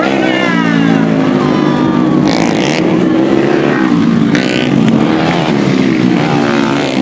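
Racing dirt-bike engines revving hard as several motorcycles pass close by one after another on a dirt track. Their pitches overlap and shift, falling as a bike goes past. Two brief rushes of noise come about two and a half and four and a half seconds in.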